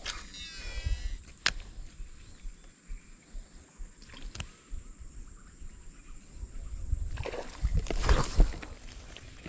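Steady high-pitched insect drone over low outdoor rumble, with a few sharp clicks and a louder swishing, splashy burst about eight seconds in.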